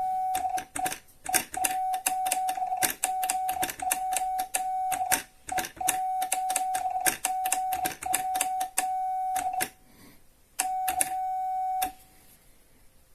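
Telegraph sending Morse code: a steady high beep keyed on and off in short and long bursts, with a sharp click at each key stroke. It pauses about ten seconds in, sends one last long beep, then stops.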